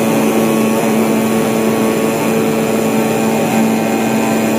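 CNC vibrating-knife cutting machine running, its oscillating knife heads cutting multilayer sound insulation cotton: a loud, steady machine hum with a constant low tone.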